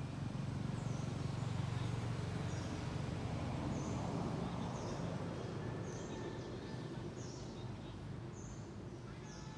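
Steady low rumble with short high chirps repeating about once a second.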